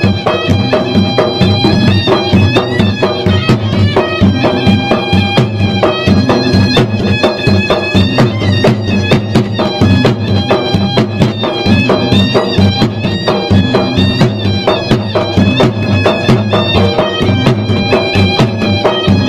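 South Sulawesi gendang ensemble: two-headed gendang drums beaten in a dense, fast rhythm under a continuous shrill melody from a double-reed pipe, the pui-pui.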